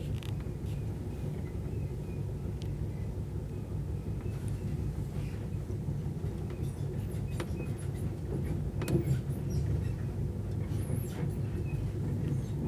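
Night Riviera sleeper train running, a steady low rumble as heard inside the carriage, with occasional faint clicks and rattles.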